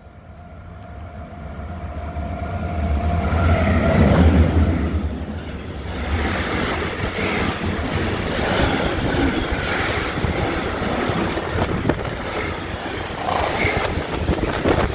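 Electric locomotive approaching and passing, a steady whine growing louder to a peak about four seconds in. Then the long rumble of an intermodal freight train's pocket wagons carrying semi-trailers rolling past, with wheel clicks and clatter.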